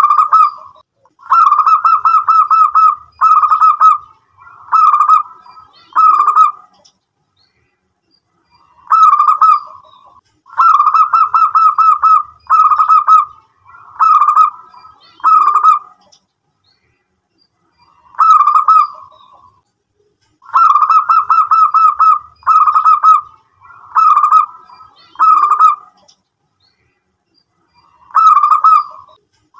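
Zebra dove (perkutut) cooing close up. Its song phrases repeat about every nine seconds, three in full with a fourth starting at the end. Each phrase is one opening coo, a quick run of staccato notes, then three short separate coos.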